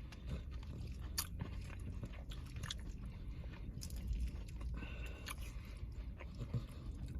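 Close-miked chewing of a Chipotle meal with tortilla chips: soft steady chewing with a few short, sharp crunches a second or so apart.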